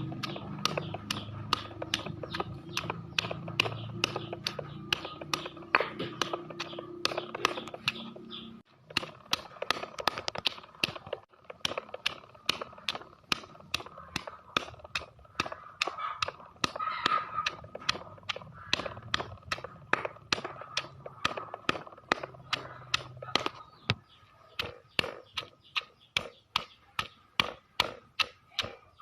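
A long, regular run of sharp clicks or taps, about three a second, over a low hum that stops about a third of the way in.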